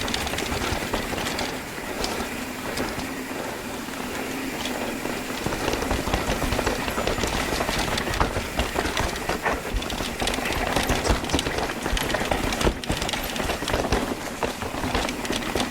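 Mountain bike rattling over rough trail: tyre rumble and a constant clatter of many small knocks from the bike, with wind noise on the microphone.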